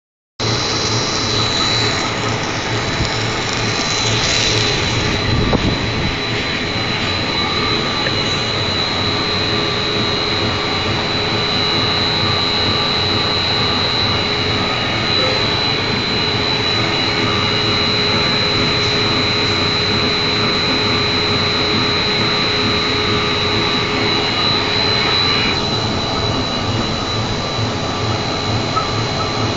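Corn puff snack extrusion line running: a loud, steady machinery drone from the extruder and its motors, with a constant high-pitched whine over it.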